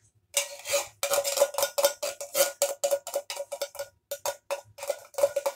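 Metal spoon scraping and knocking inside an emptied tin can of tomato soup, a quick run of short strokes, several a second, each making the can ring with a clanking tone.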